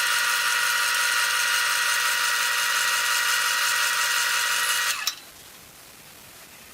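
Wood lathe running with a steady high motor whine, switched off about five seconds in and spinning down quickly, leaving a faint hiss.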